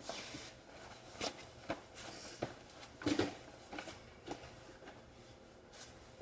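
Scattered light knocks and clicks of things being handled and set down, spaced irregularly, with a somewhat stronger clunk about three seconds in.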